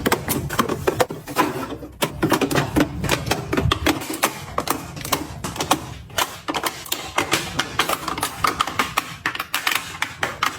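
Hard items clicking and tapping as they are handled and set down, a dense, irregular run of sharp clicks several times a second.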